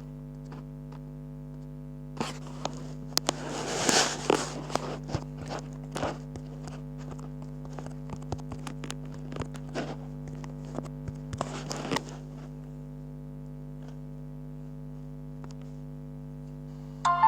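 Steady low electrical hum, several fixed tones held unchanged throughout, with scattered crackles and clicks over roughly the first two thirds that stop about 12 seconds in, leaving the hum alone.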